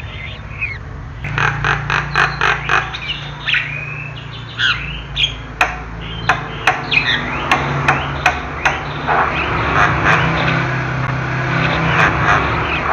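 Javan myna calling: a rapid run of sharp clicking notes mixed with short gliding whistles and harsh squawks. A steady low hum runs underneath.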